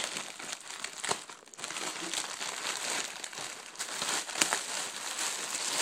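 Plastic packaging crinkling and rustling in irregular bursts as hands handle a poly mailer bag and the clear plastic wrap around a pair of boxing mitts.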